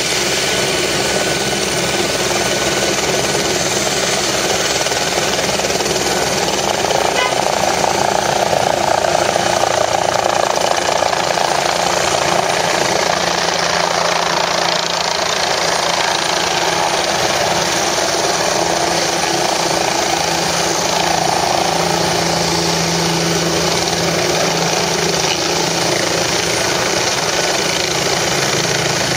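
Helicopter turbine engine and rotor running loud and steady at close range.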